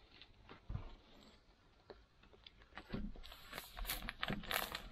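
A soft knock a little under a second in, then crinkling and rustling in the second half as a sealed, plastic-wrapped pack of wood shavings is handled.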